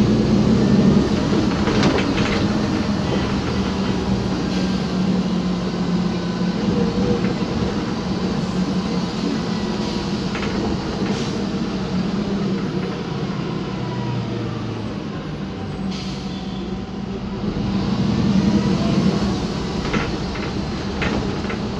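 Cabin noise of a 2010 MAN Lion's Classic city bus under way, its MAN E2876 CNG engine and road noise running steadily, with scattered knocks and rattles from the soft suspension and interior fittings. The noise eases a little past the middle and builds again near the end.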